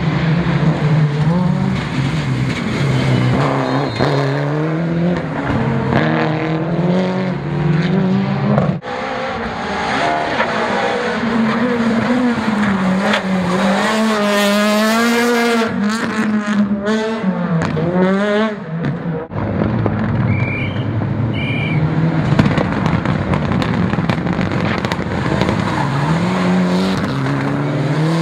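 Rally cars, Mitsubishi Lancer Evolutions among them, driven hard on tarmac: engines revving up and dropping back over and over through gear changes and braking. In the middle one car passes close by with a rising then falling engine note.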